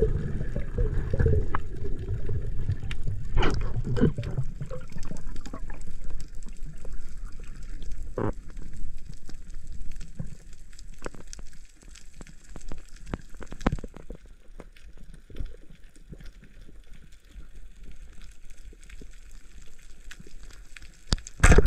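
Underwater sound as picked up by a diver's camera over a coral reef: a low water rumble and gurgling, stronger in the first few seconds, with scattered sharp clicks throughout.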